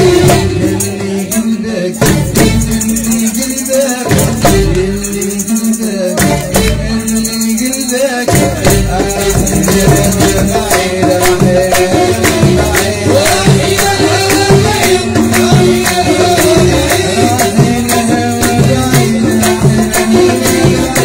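Live Touat folk music: a keyboard and hand percussion keep a steady beat with a dense rattling pulse, and a man sings over it.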